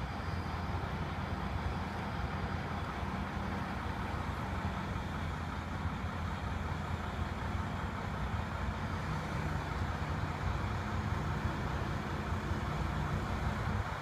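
Truck-mounted crane's engine running steadily under load, powering the boom as it holds a suspended truss.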